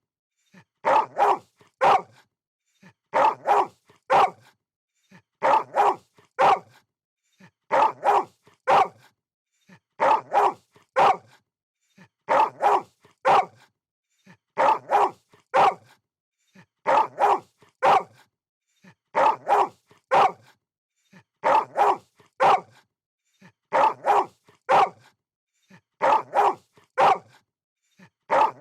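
Dog barking in short volleys of about three barks, one volley roughly every two and a half seconds in an even, looping rhythm.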